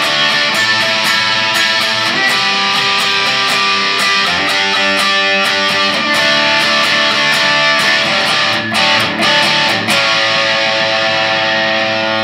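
Fender Telecaster HH electric guitar strummed, playing chords in a steady rhythm, with two brief breaks about three-quarters of the way through.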